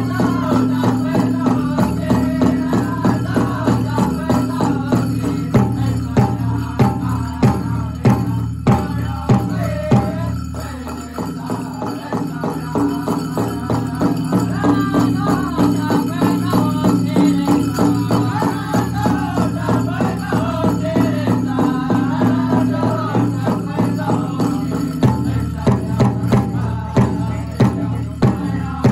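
Powwow drum group singing a chicken dance song over steady strokes on a big drum, with the dancer's leg bells jingling along.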